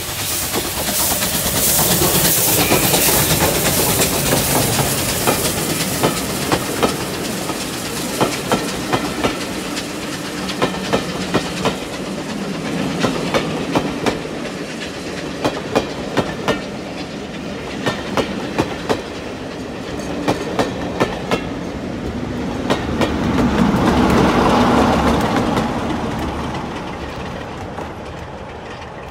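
Bulleid Pacific steam locomotive passing close by, with a loud hiss of exhaust and steam at first. Then the coaches' wheels click over the rail joints in regular groups of beats. A heavier swell from the diesel locomotive on the rear of the train comes about three-quarters of the way through, and the whole train fades away.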